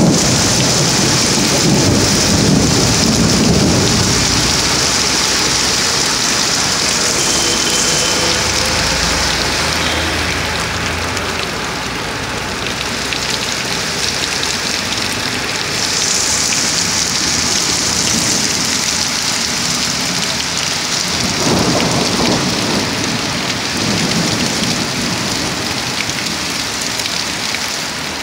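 Heavy rain pouring onto a paved street, a steady loud hiss, with low rumbles of thunder near the start and again about three quarters of the way through.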